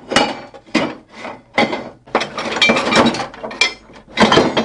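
Lengths of steel tubing and bar stock being shifted and dragged against each other in a metal scrap bin: a quick, irregular run of scraping clatters.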